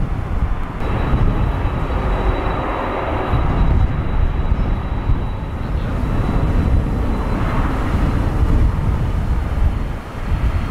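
A twin-engine jet airliner's engines at takeoff power during its takeoff roll: a steady rushing rumble, with a faint thin high tone above it through the first half.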